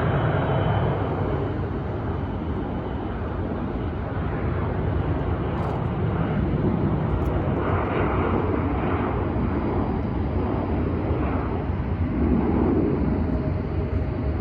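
Airliner engines making a steady, loud rumble, with a faint whine near the start and again near the end.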